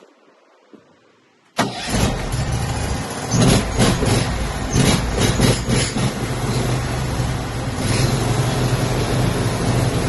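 Portable sawmill's gasoline engine running loud and steady after starting, surging a few times in the middle. It comes in suddenly about a second and a half in.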